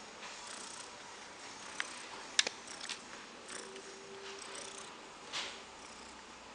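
Soft rustling with a few light clicks and taps as a kitten bats at a feather teaser wand inside a wire pen; the loudest is a sharp click about two and a half seconds in.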